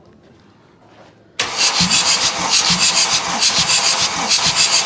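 Mercedes-Benz OM642 3.0-litre V6 diesel, out of the car, cranked over on its starter motor for a compression test: a loud, evenly pulsing cranking that starts suddenly about a second and a half in. The gauge in cylinder one reads 26 kg/cm², a healthy compression.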